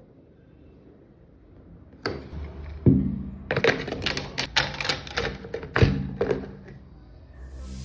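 A toy gel blaster clicking and clacking: one sharp click about two seconds in, then from about three seconds in a run of irregular sharp clicks and knocks over a low hum.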